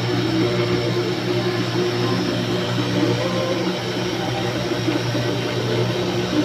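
Bench-mounted electric motor with a sanding disc spinning freely with no wood against it: a steady, even hum and whir.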